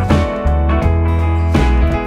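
Background music: a pop song with a steady bass and guitar, no vocals in these seconds.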